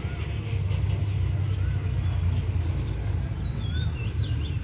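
Birds chirping in short whistled notes over a steady low rumble, with a quick run of rising and falling whistles near the end.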